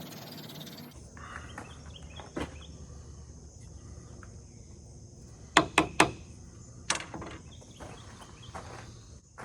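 Outdoor background with a faint insect drone. A quick run of three sharp knocks about halfway through is the loudest sound, with single clicks a few seconds before and after.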